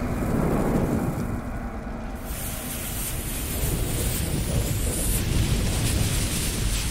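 Logo-intro sound effects of a lit fuse burning: a continuous low rumble, with a sizzling hiss that comes in about two seconds in and fades out later.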